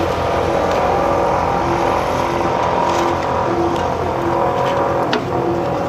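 Diesel engine of asphalt-paving machinery running steadily at a constant speed. From about two seconds in, a low tone pulses on and off roughly every half second.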